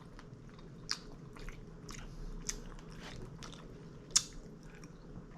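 Close-miked chewing and mouth sounds of a person eating, with a few short, sharp clicks scattered through, the loudest about four seconds in.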